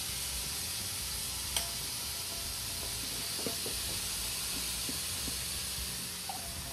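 Diced onions and mushrooms sizzling steadily in a hot stainless steel frying pan. There is one sharp metal clink about a second and a half in, then a few light taps as the onions are scraped from a metal bowl with a spatula.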